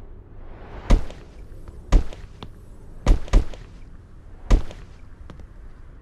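A series of sharp bangs or thuds, five in all, roughly a second apart, with two in quick succession near the middle.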